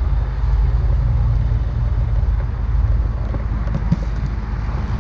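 Steady low rumble of a running vehicle, with a fine even pulse in it, and a couple of faint clicks about four seconds in.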